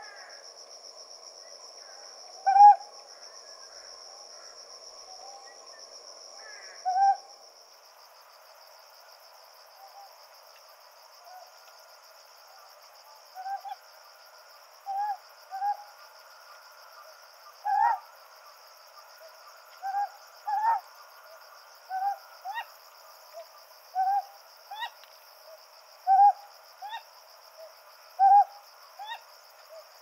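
Ryukyu scops owl giving short 'kohoh' calls, a few seconds apart at first and then about one a second, often in quick pairs, over a steady high insect trill.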